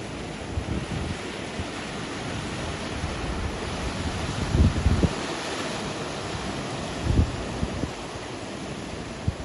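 Sea waves washing and breaking on the shore, a steady rushing hiss that swells for a moment about halfway through. Wind buffets the microphone in low thumps about five and seven seconds in.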